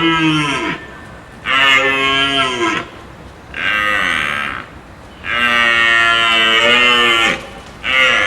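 Cow mooing: a run of drawn-out moos, each arching in pitch and dropping away at the end. The first call ends early on, then four more follow with short gaps, the longest lasting about two seconds.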